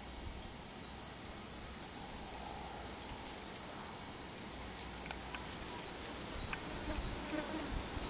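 Insects calling in a steady, unbroken high-pitched chorus.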